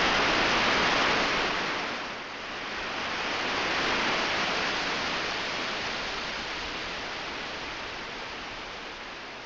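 A steady rushing hiss that dips briefly about two seconds in, swells again, then slowly fades.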